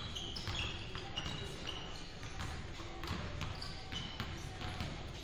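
Many basketballs bouncing irregularly on a hardwood gym floor as players dribble and shoot in warm-ups, echoing in the big gym, with short high squeaks of sneakers on the floor.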